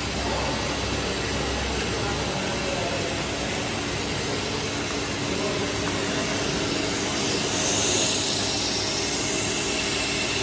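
3D-printer filament extrusion line running: a steady machine hum and hiss with a faint constant tone underneath. The hiss swells briefly about eight seconds in.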